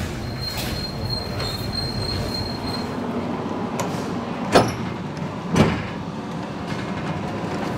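A bare car body on a wheeled assembly trolley being pushed across a workshop floor: a steady rolling rumble with a thin high squeal for the first three seconds, then two sharp clanks about a second apart.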